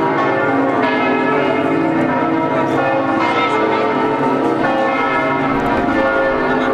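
Several large church bells ringing together in a full peal, their tones overlapping in a dense, steady wash.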